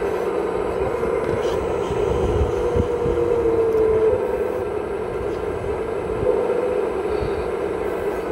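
Hydraulic pump of a radio-controlled scale Cat 6015B excavator running with a steady whine as the boom and bucket move, the tone rising a little and growing louder about three to four seconds in.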